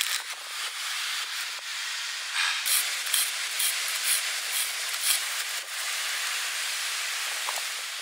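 A steady hiss, with a run of sharp clicks from about two and a half to five and a half seconds in.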